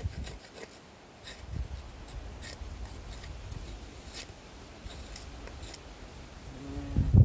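Knife blade shaving a soft pine plank: several short scraping cuts at an irregular pace, with wind rumbling on the microphone. A brief vocal sound near the end is the loudest moment.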